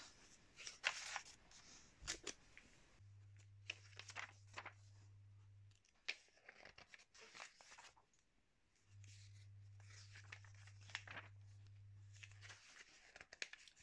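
Quiet rustling and crackling of glossy magazine pages as they are handled and turned. A low steady hum comes in twice for a few seconds.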